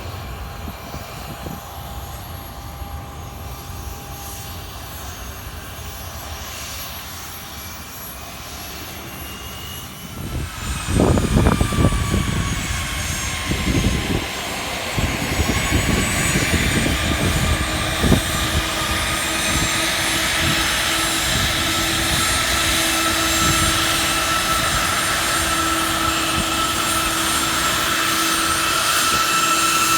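Cessna Citation business jet's turbofan engines whining and rumbling, growing louder from about ten seconds in as a thin whine slowly rises in pitch.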